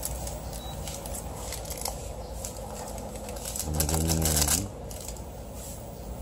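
Seasoning packet being squeezed and emptied into a pot of boiling instant noodles: light rustling and handling over a steady background. About four seconds in comes a short low hum whose pitch rises as it ends.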